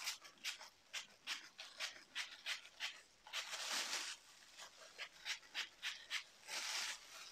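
Temporary pink hair-colour spray hissing onto hair in two sprays of under a second each, amid a run of quick short rustles about three a second.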